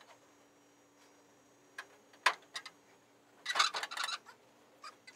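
Scattered metallic clicks and clinks of bolts and washers being handled and fitted at a pickup's rear fender. A sharp click comes a little past two seconds in, and a quick run of rattling clicks follows about a second later.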